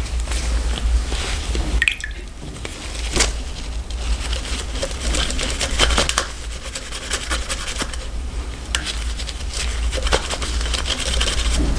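A damp pipe cleaner being worked and scrubbed inside the plastic nozzle of a hot lather dispenser to clear out clogged old shaving cream, making irregular wet squishing and scratchy scraping sounds. A low steady hum runs underneath.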